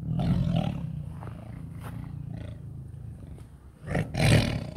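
Tiger growling low over its food: a loud growl at the start easing into a steady rumble, then a second loud growl about four seconds in.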